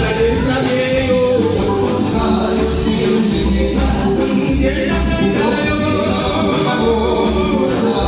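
A live band playing with a singer over the PA at a sound check: a sung melody over a pulsing bass line.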